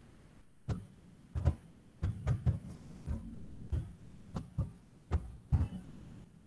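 Computer keyboard being typed on: about a dozen irregular keystrokes, each a short click with a low thump.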